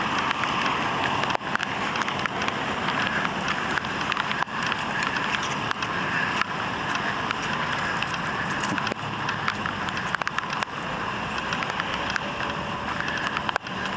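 A car being driven: steady road and engine noise with scattered small knocks.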